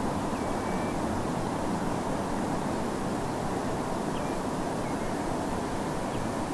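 Distant North Sea surf as a steady, even roar, with a few faint, short calls from distant Eurasian oystercatchers, once about half a second in and a few times around four to five seconds in.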